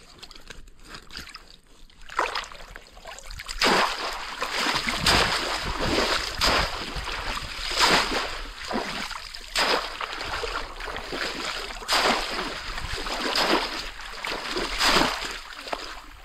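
Shallow pond water splashing and sloshing in repeated surges, about one every second and a half, as a bamboo polo fish trap is worked down through the water by someone wading. The splashing starts about two seconds in.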